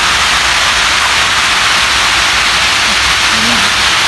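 Water pouring over a masonry dam's spillway and cascading down its face: a loud, steady rush.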